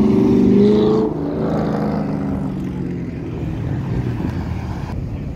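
A car engine accelerating hard as it drives past, its pitch climbing for about a second. The note then drops away and fades into the steady rumble of passing traffic.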